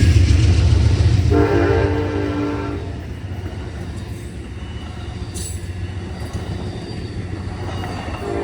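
Multi-tone train horn sounding over a deep rumble that fades away: one blast of about a second and a half, then another starting near the end.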